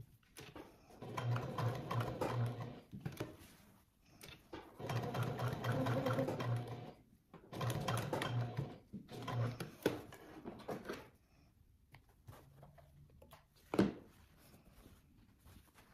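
Janome HD9 straight-stitch sewing machine stitching in four short runs with pauses between, a steady motor hum under the rapid needle ticks. A single scissor snip near the end.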